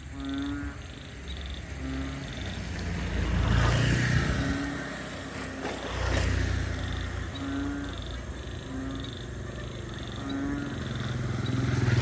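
Frogs or toads calling in a wetland chorus: one kind gives short high peeps about twice a second, another a lower croak every second or two. Two low rumbling swells rise and fade about 4 and 6 seconds in.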